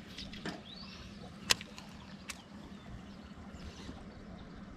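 Baitcasting reel being wound in during a lure retrieve, with a few short clicks, the sharpest about a second and a half in, over a faint steady low hum.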